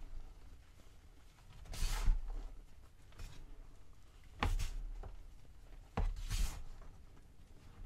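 Powdered gym chalk crunching as bare hands press into it and squeeze it, in three separate bursts about two, four and a half and six seconds in.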